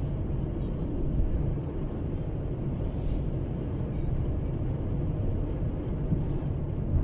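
Steady low rumble of a car driving along the road, engine and tyre noise.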